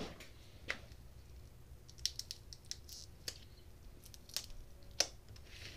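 Irregular sharp clicks and light scratches from a small hand tool prying at the taped wire connections of a battery pack, the loudest click about five seconds in.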